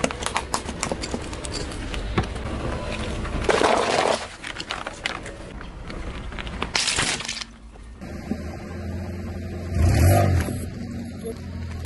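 A car tyre rolls over and crushes plastic lighters and squishy toy balls, with a run of sharp cracks and snaps, short noisy bursts, and a dull low thud near the end. Background music plays under it.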